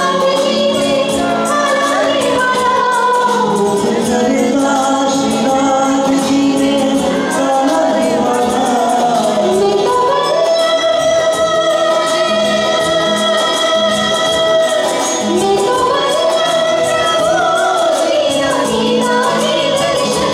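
A woman singing a bhajan with long, wavering held notes, accompanied by an electronic keyboard with a steady rhythm beat.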